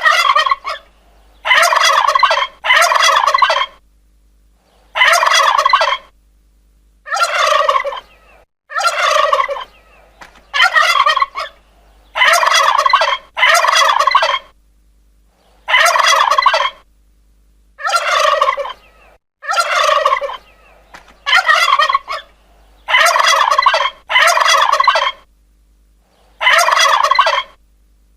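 Domestic turkey gobbling over and over: about seventeen gobbles, each a rapid rattling call under a second long, with short pauses between them.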